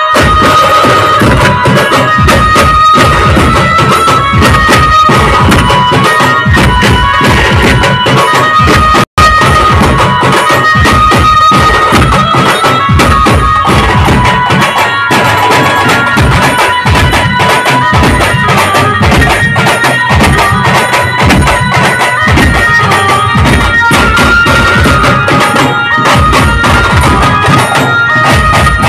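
Village street band playing a Hindi film song: an amplified melody line over drums and hand cymbals beating a fast, steady rhythm. The sound cuts out for an instant about nine seconds in.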